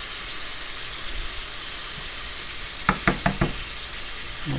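Canned mushrooms sizzling steadily in chicken drippings in a stainless steel skillet, with a quick run of about five sharp knocks about three seconds in as a spatula strikes the pan.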